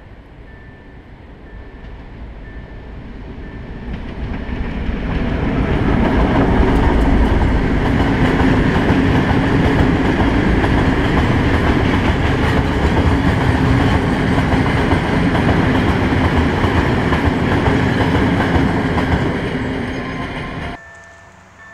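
Freight train of tank wagons hauled by a Tem2 diesel locomotive rolling past close by. The sound builds over several seconds, stays loud and steady, fades, then cuts off suddenly near the end.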